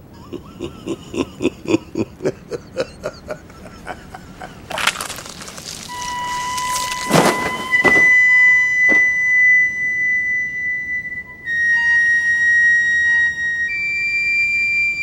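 Dramatic soundtrack music. It opens with a quick run of pulsing notes, about five a second, followed by a whoosh and a loud hit about seven seconds in. Long high held notes follow and step up in pitch near the end.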